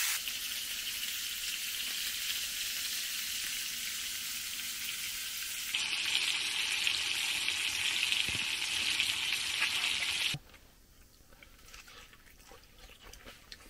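Meat chops frying in hot fat in a cast-iron skillet: a steady sizzle. It grows louder about six seconds in and cuts off abruptly about ten seconds in, leaving only faint quiet.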